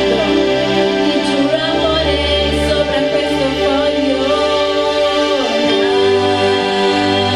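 A woman singing held, gliding notes into a microphone over electronic keyboard accompaniment playing sustained chords.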